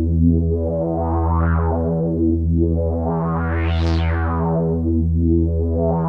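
Behringer DeepMind 12D analog polysynth playing a held chord over a low bass note. Its filter sweeps open and closed in slow swells, brightening and darkening the sound about every two and a half seconds.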